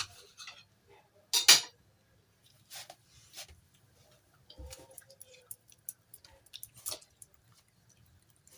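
Dishes and cutlery being handled during a meal: scattered light clicks and knocks, with one louder, noisy clatter about a second and a half in.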